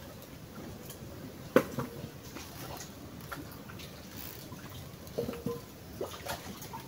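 Scattered light knocks and clinks of a plastic basin and metal bowl being handled while washing leaves, with one sharp knock about a second and a half in and a few more, some briefly ringing, near the end.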